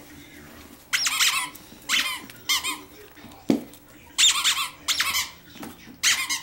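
A squeaky dog toy squeaked in about six short bursts while an English Springer Spaniel puppy plays with it. Each squeak is high and wavers in pitch, with a brief low sound in the middle.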